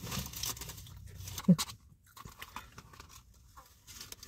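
Eating sounds: chewing and crunching with some handling of food, and a short voiced sound from the eater about one and a half seconds in.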